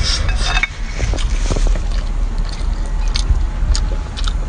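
Short wet smacks and slurps of someone sucking and chewing sauced seafood held in her fingers, several in a row, over a steady low rumble.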